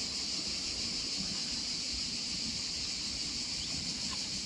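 Steady high-pitched insect chorus, with a low wind rumble on the microphone underneath.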